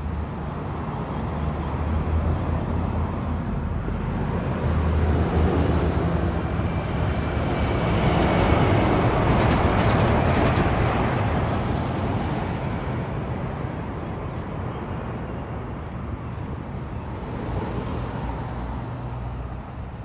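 Road traffic passing close by. A semi-trailer truck hauling shipping containers goes past about halfway through, and its engine and tyre noise swells to a peak and then fades.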